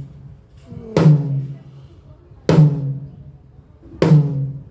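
A single drum of a drum kit struck on its own, three evenly spaced hits about a second and a half apart, each left to ring out with a steady pitch: one drum being checked at a time during a soundcheck.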